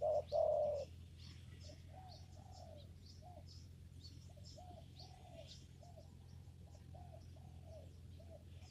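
Spotted dove cooing: a loud two-part coo right at the start, then a run of short, softer coo notes. Small birds chirp faintly and high above it, over a steady low hum.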